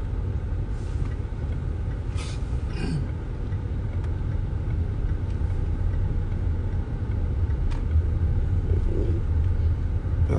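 A steady low rumble with a few faint clicks, about two and three seconds in.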